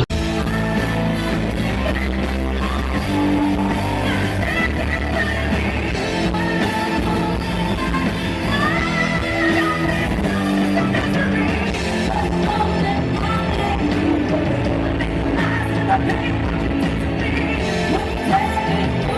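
Rock music with a singing voice over guitar and other instruments, at a steady loud level.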